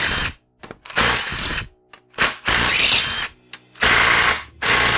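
Cordless impact wrench hammering in four bursts, the last one the longest, as it breaks loose the transmission case bolts. Between bursts its motor can be heard spinning. The lower bolts are held with Loctite, and the extension on the impact is robbing it of torque.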